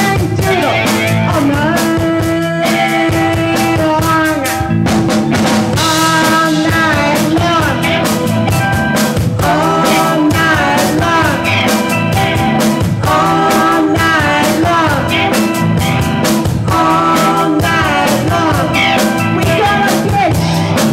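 Live blues-rock band playing: a woman sings into a microphone over electric guitars, bass and drums with a steady beat.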